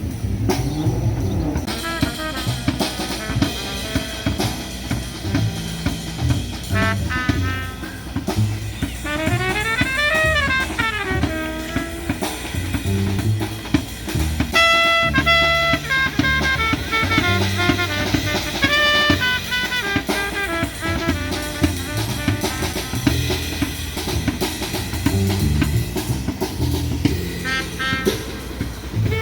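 Background music: a song with a drum kit keeping a steady beat under melodic lines, with a quick run of notes up and back down about ten seconds in.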